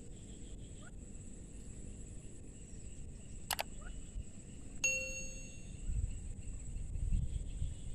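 A single bright metallic ding about five seconds in that rings briefly and fades, preceded by a sharp click. Low gusty rumbling of wind on the microphone near the end, under a steady high-pitched drone.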